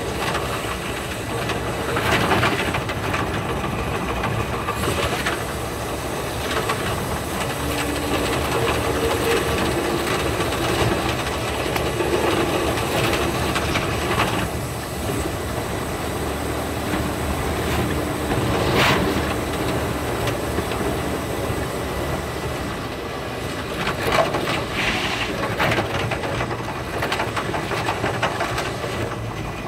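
Limited express electric train running, heard from inside the carriage: a steady rumble of wheels on rails with a few sharper clacks and knocks.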